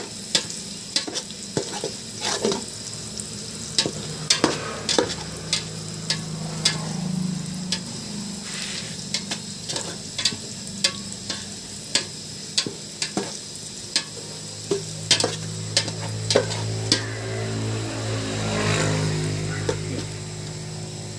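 Food sizzling as it fries in a pan, stirred with a spatula that knocks and scrapes against the pan in many irregular clicks. A low steady hum runs underneath.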